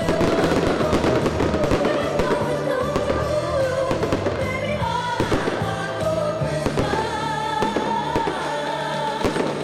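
Song playing, with singing over a stepping bass line and frequent short sharp hits.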